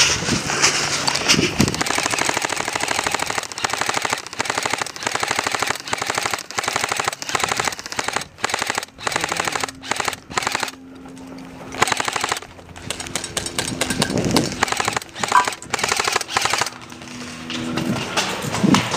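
Airsoft electric rifles firing in rapid full-auto bursts: a fast clatter of shots in strings broken by short pauses, with a brief lull about eleven seconds in.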